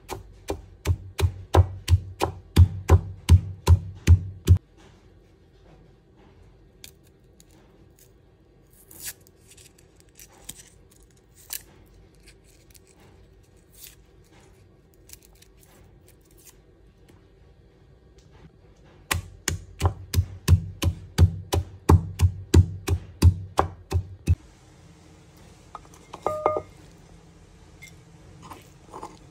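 Wooden pestle pounding in a wooden mortar: two bouts of steady, even knocks with a dull thud, about three to four strikes a second, with faint clicks between them. Near the end, a short ringing clink.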